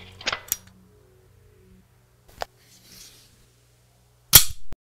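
Metallic clicks of Glock 17 parts: two quick clicks, then a single click a couple of seconds later. Near the end comes the loudest, a sharp click and a short slide as the slide comes forward off the frame, which cuts off abruptly.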